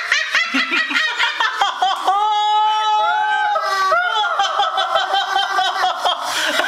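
One high-pitched voice laughing: quick giggles, then a long drawn-out held laugh about two seconds in, then a fast run of short laughs.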